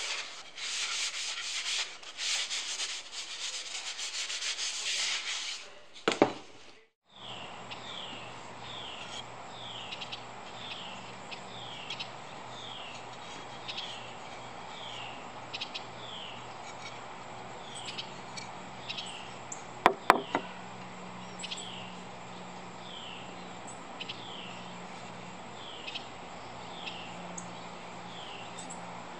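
A paper towel rubbed briskly along a walnut wood spoon, a steady scratchy rubbing that ends in a thump after about five seconds. Then quieter outdoor ambience with a short falling chirp repeating about every three quarters of a second, and a couple of sharp clicks about two-thirds of the way through.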